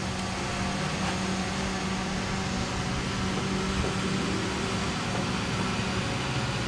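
Steady low machine hum with a few constant low tones under an even noise, running unchanged.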